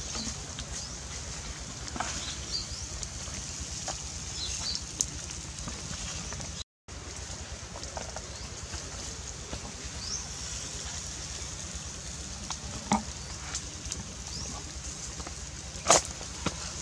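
Pork ribs sizzling on a wire grill over wood embers, a steady hiss with scattered crackles and pops and occasional short bird chirps. A brief dropout breaks the sound about seven seconds in, and a sharp snap comes near the end.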